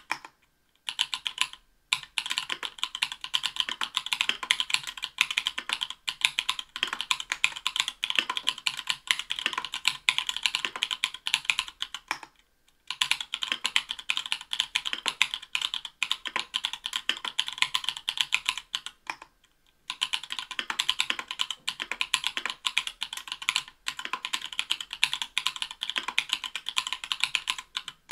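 Mechanical keyboard typing on Everglide Bamboo Leaf Green 62 g tactile switches, stock and unlubed, in an Octagon v3 with an aluminium plate and Cherry-profile PBT keycaps. Fast, steady keystrokes run for several seconds at a time, with short breaks about twelve and nineteen seconds in.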